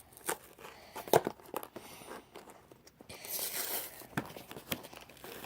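Toy box packaging being pulled and torn open by hand, crinkling and crackling irregularly, with a longer rustle about three seconds in.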